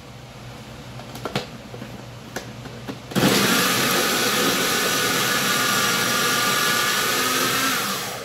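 Food processor motor running, its blade chopping red onion and garlic, with a steady whine. It starts suddenly about three seconds in and winds down near the end. Before it, a few light knocks as the clear plastic lid is fitted.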